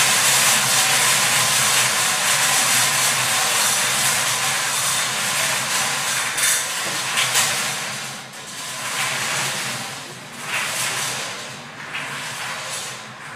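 Four hand-cranked wire-cage lottery ball drums spinning, the numbered balls tumbling and rattling against the steel wires in a dense clatter. After about eight seconds the clatter thins into separate clacks and fades as the cages slow to a stop.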